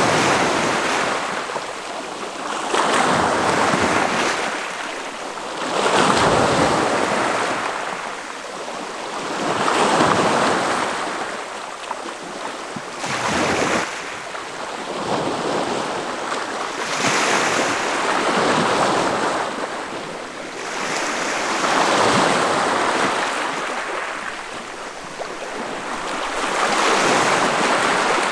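Ocean waves breaking and washing in, one surge of surf after another every three to four seconds, each rising to a rushing peak and then ebbing.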